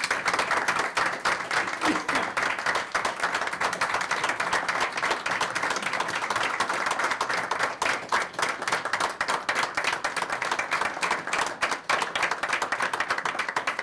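Audience applause: a roomful of people clapping steadily.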